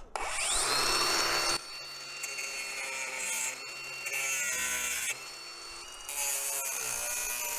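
Ryobi cordless angle grinder with a cutting disc spinning up with a rising whine, then cutting through thin metal window fixing straps, its note dropping and recovering several times as the disc bites.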